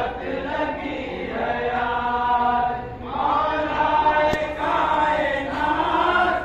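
Men chanting a noha, an Urdu mourning lament, together in long held phrases, with a short break about three seconds in. A single sharp click sounds about four and a half seconds in.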